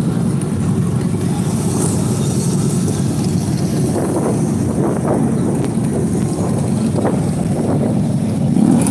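Steady low rumble of motorcycle engines running, with faint voices of a crowd mixed in.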